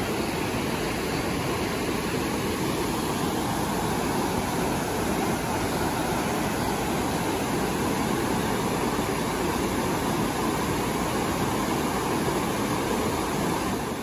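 Mountain stream rushing over boulders in small rapids: a steady, even rush of water.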